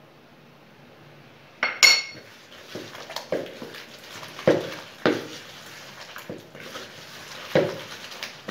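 A glass dish clinks once, ringing briefly, about two seconds in. Then comes the wet squelching of a hand kneading a raw egg into soft margarine-and-sugar dough in a plastic bowl, in several separate squishes.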